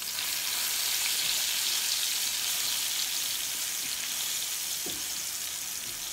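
Blended chili-and-tomato paste sizzling in hot oil in a nonstick frying pan, with a steady hiss as it is stirred with a plastic spatula.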